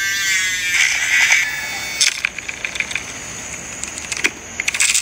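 A small handheld electric milk frother whirs with a high motor whine that dies away in the first second, then gives a short hiss. This is followed by scattered clicks, and a run of rapid clicking and rattling near the end.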